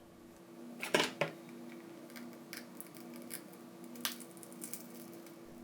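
Short clicks and scrapes of plastic and tool against a phone's edge as the glued plastic back cover is pried from the frame, the loudest about a second in and again about four seconds in.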